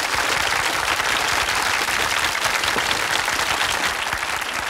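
Studio audience applauding steadily: the dense clapping of many hands.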